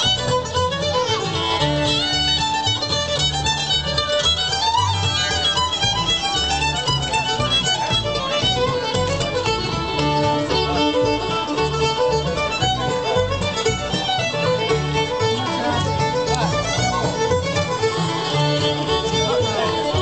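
Live acoustic string band playing outdoors, with upright bass and guitar keeping a steady beat under a melodic lead.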